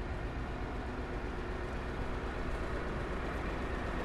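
Engine of an eight-wheeled armoured personnel carrier running steadily as it rolls slowly past, towing a coffin carriage; a low, even rumble.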